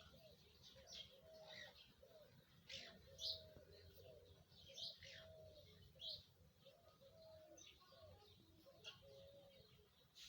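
Faint bird calls from pet lovebirds: short high chirps here and there over an even run of soft low cooing notes, about two a second.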